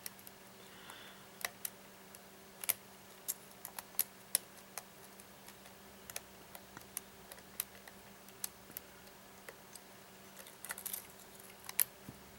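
Lock pick tapping and clicking on the pins inside a Yale pin-tumbler lock under light tension: scattered small sharp clicks at irregular intervals, over a faint steady hum.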